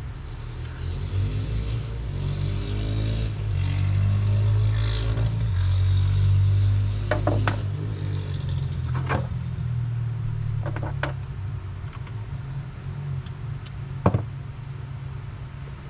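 Small off-road engines of four-wheelers and dirt bikes running and revving, swelling to a peak about five to six seconds in and then easing back. A few sharp metal clinks of a hex key and bolts on the cast-iron transmission case, the loudest near the end.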